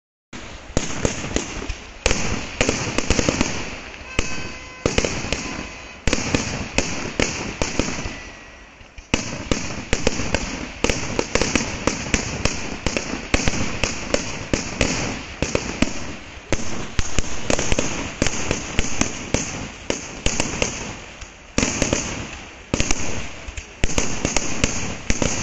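Kerala temple fireworks (vedikkettu): a rapid barrage of firecracker and aerial shell explosions, several loud bangs a second, easing briefly about four and eight seconds in.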